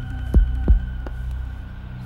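A heartbeat-like double thump, two deep beats about a third of a second apart, sounds once over a steady low drone with faint high sustained tones. This is a suspense film score effect.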